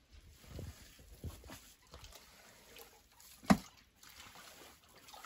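Hands scooping and squeezing wet grated cassava pulp, making soft, irregular wet squishing sounds. One sharp knock about three and a half seconds in.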